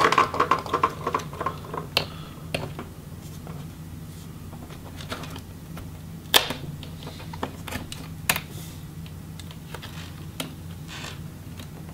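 Thin pry tool clicking and scraping against a laptop's plastic bottom case as a small cover and a rubber foot are pried up. A quick run of small clicks comes in the first couple of seconds, then scattered sharp clicks, the loudest about six seconds in, over a steady low hum.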